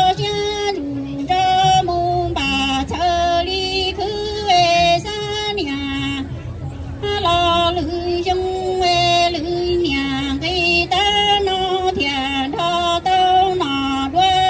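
A woman singing kwv txhiaj, Hmong sung poetry, into a microphone: long held notes that step up and down in pitch, in phrases with short pauses between them.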